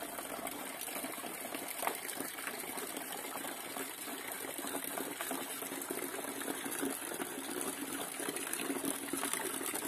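Rope pump running, driven by an old Renault 9 radiator cooling-fan motor, with water gushing steadily from its outlet pipe and the small electric motor whirring underneath.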